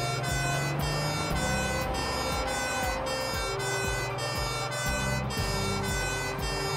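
Cartoon ambulance siren sound effect over background music with a steady beat.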